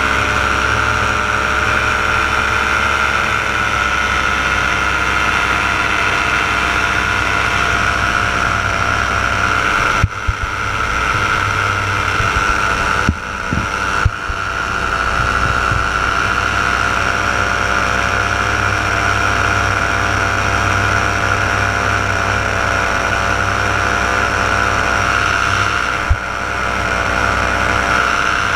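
Paramotor engine and propeller running steadily at cruise throttle in flight, a constant drone with a high, buzzing whine. The level dips briefly a few times, around 10, 13 and 26 seconds in.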